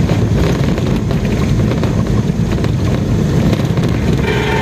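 Steady rumble of a moving road vehicle, engine and road noise with some wind, while travelling along a road.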